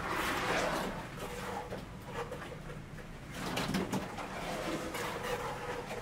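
Pigeons cooing in low, repeated calls over the ambient sound of a building site, with a brief rush of noise in the first second.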